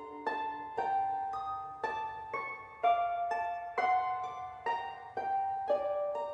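Gentle instrumental background music: a slow melody of single notes, about two a second, each struck sharply and left to ring and fade.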